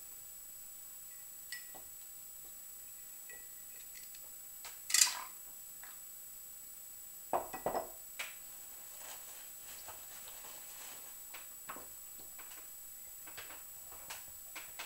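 Small paintball marker parts and tools clinking and clattering as they are handled on a table: scattered light clicks, a sharper clack about five seconds in, and a short run of knocks around seven to eight seconds.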